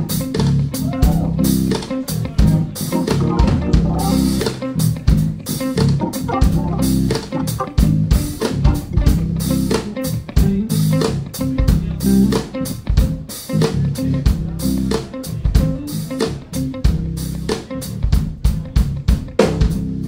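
Live band playing an instrumental: a drum kit with busy cymbal and drum hits over electric bass guitar and electric guitar.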